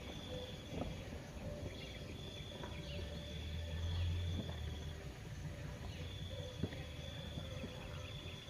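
An insect's steady high trill, starting and stopping several times, over a low outdoor rumble that swells about three to four seconds in, with a single sharp click near the end.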